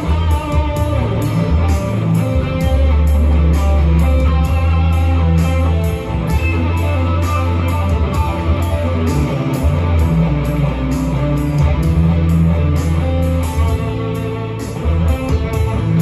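Electric guitar, a Telecaster-style solid-body, played in an improvised lead over a backing track with sustained bass notes and a steady beat of ticks about twice a second.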